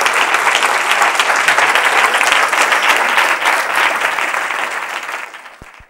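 Audience applauding at the end of a talk, a dense patter of many hands clapping that fades away near the end.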